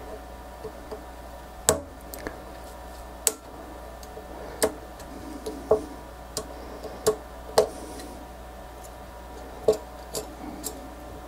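A metal pick prying at the edge of a thin, clip-on metal RF shield can on a Chromecast circuit board: about a dozen sharp, irregular clicks and ticks as the tip catches and the lid's edge snaps.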